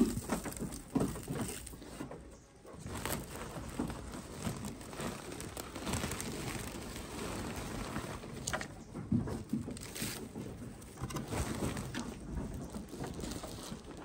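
Farm animals feeding and moving about, with scattered pattering and shuffling and a few soft, low bird calls like cooing.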